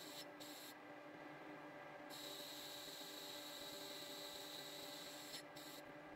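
Metal lathe running, a faint steady hum with a thin high-pitched whine over a hiss. The hiss briefly drops away twice.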